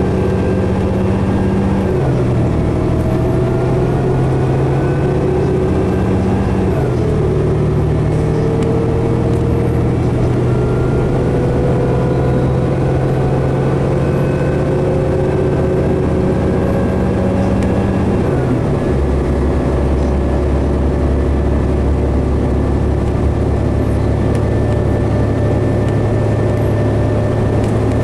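Cummins ISL 330 diesel six and Allison B500R automatic transmission of a 2011 New Flyer D60LFR articulated bus under way and accelerating. The engine note climbs and then steps down as the transmission shifts up, about two, seven and eighteen seconds in. A whine rises slowly with speed alongside it.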